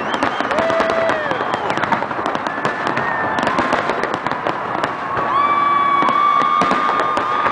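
Fireworks display: a dense run of crackling pops and bangs, with several long high whistles held over it, the longest starting about five seconds in.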